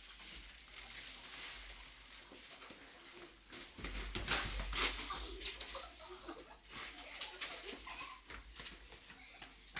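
Rustling and scuffing footsteps of several children on a concrete porch, picked up by a security camera's hissy microphone. A louder stretch of scuffs and thumps with a low rumble comes about four seconds in as they hurry away.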